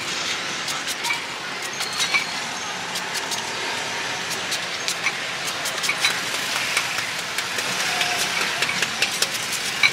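Busy roadside traffic, a steady noisy hiss with running vehicle engines, with many short sharp clicks scattered through it.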